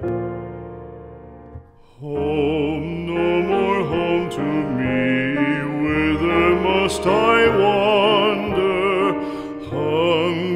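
Piano music: a held chord dies away, then about two seconds in a classically trained voice comes in singing with vibrato over piano accompaniment.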